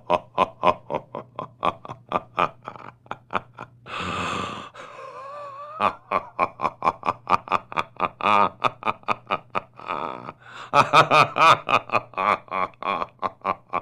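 A person laughing in long runs of short, quick voiced pulses, broken about four seconds in by a breath.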